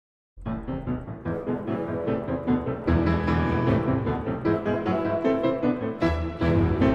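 Background music, piano-led, starting about half a second in after a moment of silence.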